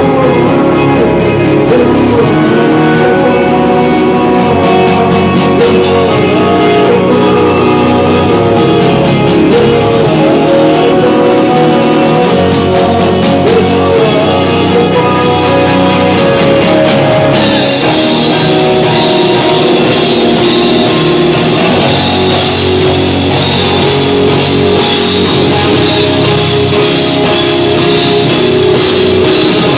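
Live rock band playing loudly: electric guitar and drum kit over a steady rhythm, with cymbals struck in short runs at first and crashing continuously from about 17 seconds in as the band gets fuller.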